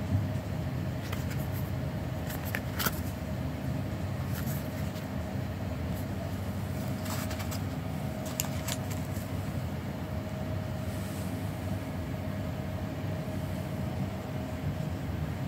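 Steady low background rumble with a faint steady hum, and a few light clicks as the flat sandals are handled in the first half.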